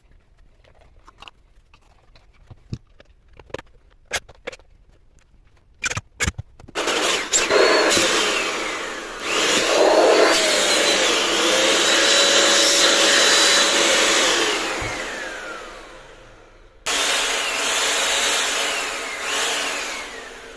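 A handheld vacuum cleaner with a replacement motor is switched on and run three times after some clicks and handling knocks. Each time its whine rises as the motor spins up and falls away as it coasts down after switch-off.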